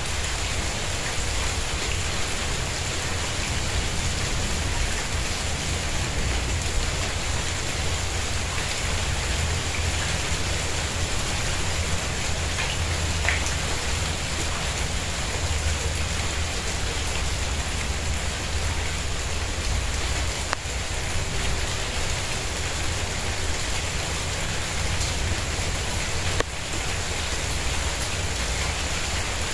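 Steady rain falling on a tiled courtyard and potted plants, with a continuous low rumble underneath.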